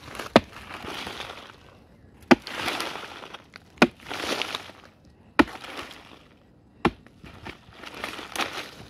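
A digging tool striking into a hard termite mound five times, about every one and a half seconds, each sharp strike followed by a rush of crumbling, falling earth.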